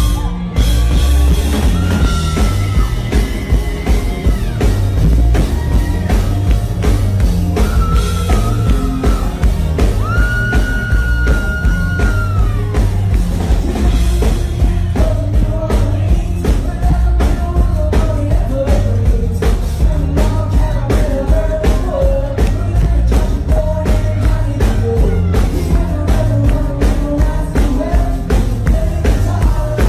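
Live rock-and-roll band: a Telecaster-style electric guitar plays a lead with long bent notes over a steady drum-kit beat, then a male voice sings from about halfway through.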